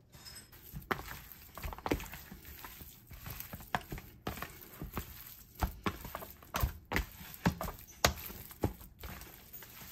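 Raw lamb chunks coated in flour being tossed and mixed by hand in a tray: irregular soft slaps and knocks of meat against meat and the tray, about one or two a second.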